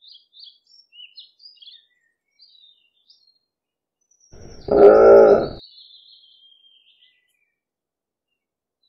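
Birds chirping in the background, then one loud, pitched dinosaur call sound effect voicing the Triceratops, about a second long and wavering up and down in pitch, about halfway through. A thin high bird whistle runs on after the call.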